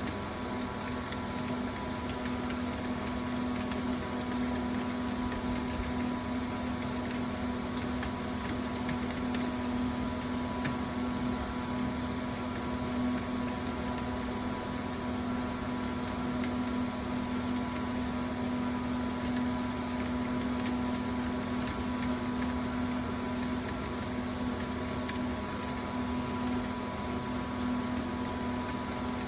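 Steady machine hum with a low, constant tone and a hiss behind it, unchanging throughout.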